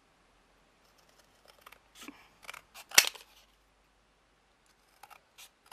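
Scattered light clicks and snips of hand tools and craft pieces being handled, with the sharpest click about three seconds in.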